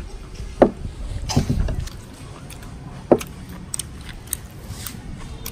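Crunching and chewing of crispy batter-fried enoki mushrooms, with scattered small clicks and a few short louder sounds.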